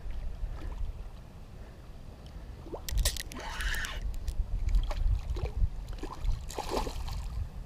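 Wind buffeting the microphone as a steady low rumble, with two louder bursts of water sloshing and splashing, about three seconds in and again near the end.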